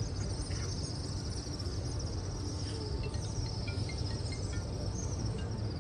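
Insects chirring steadily in a high, slightly pulsing band over a continuous low rumble of background noise, with a few short high chirps from about three seconds in.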